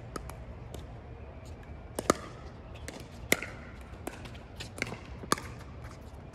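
Pickleball rally: paddles striking the hard plastic ball, heard as a series of sharp pops spaced roughly a second or so apart.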